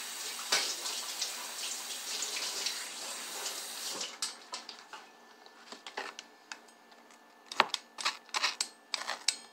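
Kitchen sink tap running as hands are rinsed under it, stopping about four seconds in. After that, a string of light clicks and knocks.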